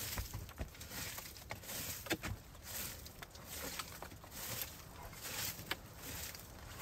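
A small twig hand broom sweeping wood chips, twigs and leaf litter across a dirt floor: a series of short brushing swishes, roughly one a second, with light clicks of chips and twigs knocked about.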